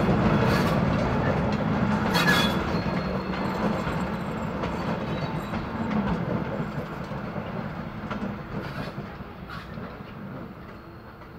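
Vintage Länderbahn-era passenger coaches rolling past, their wheels clicking over the rail joints, fading steadily as the last coach goes by and the train moves away.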